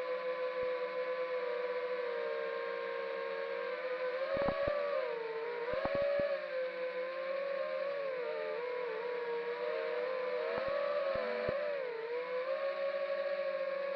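Eachine Falcon 250 quadcopter's brushless motors and 5-inch props whining, heard from the onboard camera. The pitch dips and rises with throttle changes through the middle, with a few sharp clicks scattered among them.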